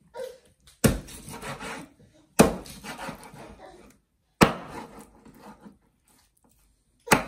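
Kitchen knife chopping raw broiler chicken on a wooden cutting board: four sharp strikes, each followed by a short scraping as the blade works through the meat.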